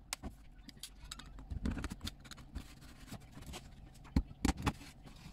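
Box cutter slicing through a corrugated plastic sheet run along a wooden shoji frame: irregular scraping and crackling with many sharp clicks. The loudest clicks come in a quick cluster about four seconds in.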